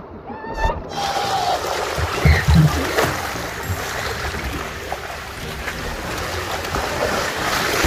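Swimming-pool water splashing and sloshing in a steady rush, with a few low thumps about two seconds in. A brief high voice is heard near the start.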